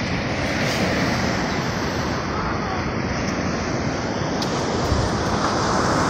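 Ocean surf washing up a sandy beach: a steady rush of breaking waves, with some wind on the microphone.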